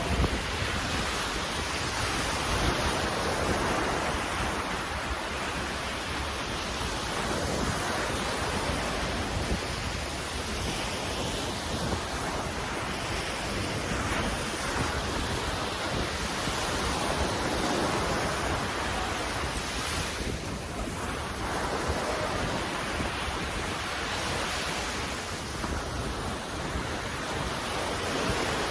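Waves washing in and out, a steady rush of surf that swells and eases every few seconds, with wind buffeting the microphone.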